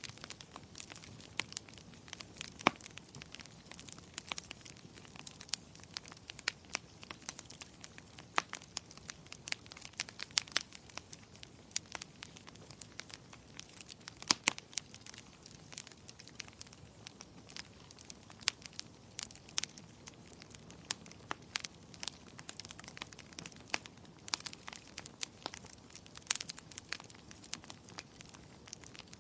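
Wood fire in a fireplace crackling: a steady low hiss of burning with frequent irregular sharp pops and snaps, a few louder ones scattered through.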